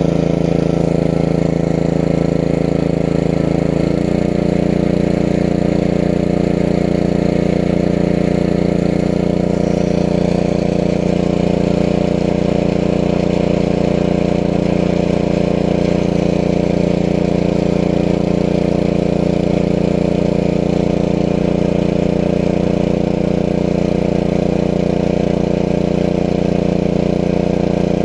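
Small engine of a water pump running steadily. Its note changes slightly about four seconds in.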